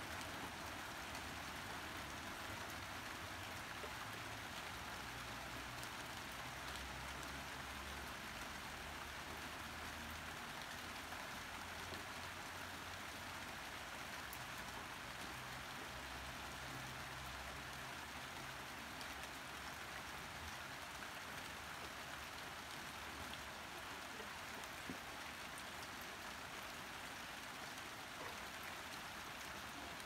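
Steady rain falling: an even, unbroken hiss of drops.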